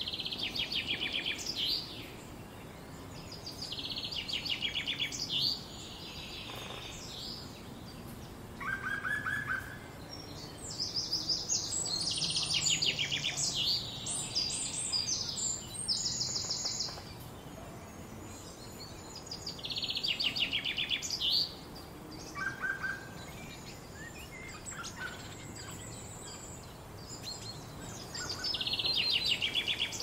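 Songbirds singing: phrases of rapid high chirping notes, every few seconds, with short quiet gaps between them.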